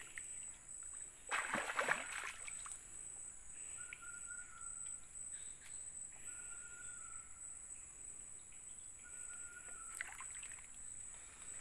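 A snakehead thrashing and splashing in the water as it is pulled out on a set fishing line, with a loud burst of splashing about a second and a half in. Behind it run a steady high insect drone and a short, even call repeated about every three seconds.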